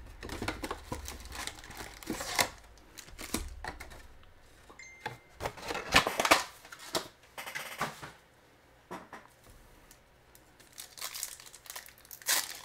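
Foil trading-card packs crinkling and rustling as they are pulled out of a hobby box and handled, in irregular sharp crackles. The crackles are loudest about six seconds in, ease off for a couple of seconds, then pick up again near the end.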